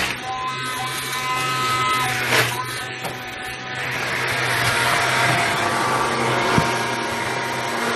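Handheld immersion (stick) blender running steadily as it purées vegetable soup in a bowl, a constant motor hum and whine, blending it to a creamy consistency.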